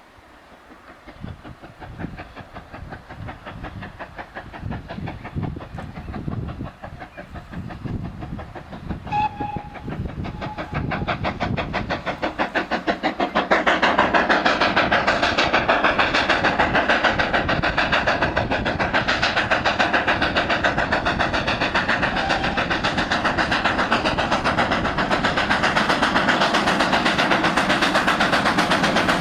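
Steam train approaching and passing close, growing steadily louder, with a short whistle about nine seconds in. From about thirteen seconds on, a loud, rapid, rhythmic clatter of exhaust beats and wheels holds to the end.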